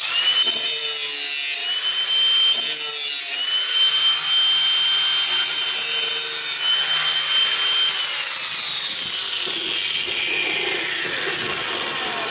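Angle grinder with a metal-grinding disc taking a quick pass along the edge of a steel lawnmower blade to level and sharpen it: a steady high motor whine with a grinding hiss. About eight seconds in it is switched off and the whine falls away as the disc spins down.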